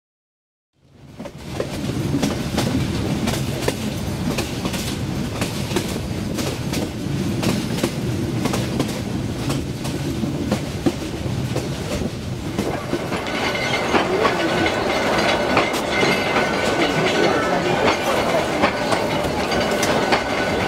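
Myanmar Railways passenger train running, heard from aboard: a steady rumble with rapid clicks of the wheels over the rail joints, fading in about a second in. About twelve seconds in the sound turns brighter and hissier, with faint thin high tones over it.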